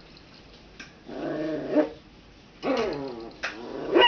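Puppy growling in play, in three short bouts: about a second in, a little past halfway, and near the end.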